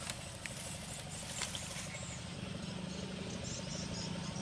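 Outdoor ambience with a steady low hum, faint short high chirps repeating from about halfway through, and a few small clicks in the first second and a half.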